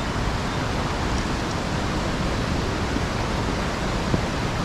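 Steady, loud rush of a fast-flowing river near a waterfall.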